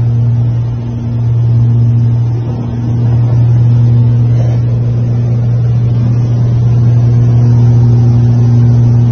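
Twin piston engines of a light twin-engine aircraft running steadily, a loud even drone heard from inside the cabin; the level dips briefly twice in the first few seconds, then holds steady.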